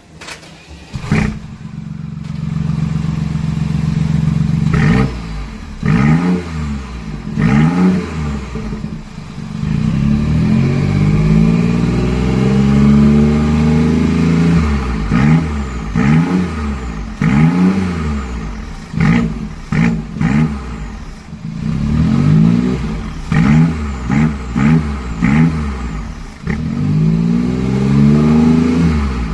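BMW i8's 1.5-litre turbocharged three-cylinder engine through an aftermarket 'loud type' exhaust. It comes in suddenly about a second in and idles briefly, then is revved again and again: quick blips that rise and fall, with a few longer held revs around the middle and near the end.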